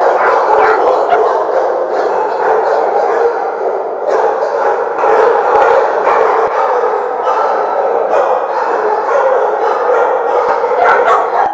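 Many shelter dogs barking and yipping at once in their kennels, a loud, continuous din with no pauses.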